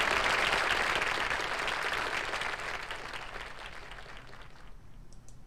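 Audience applause as the song ends, fading away over about four seconds. Two faint clicks near the end.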